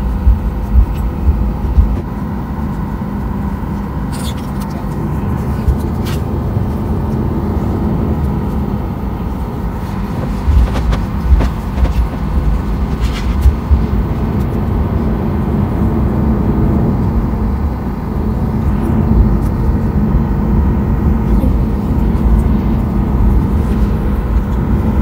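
Jet airliner cabin noise while taxiing: a steady engine hum over a low rumble from the wheels, with a few low thumps in the first couple of seconds and a few brief faint clicks.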